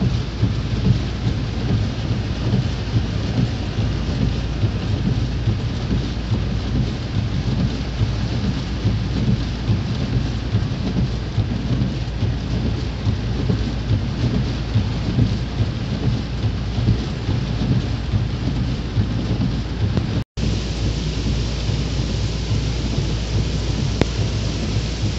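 Heavy rain pelting a car's windscreen and roof, heard from inside the moving car as a steady hiss over a constant low rumble. The sound drops out for an instant about twenty seconds in.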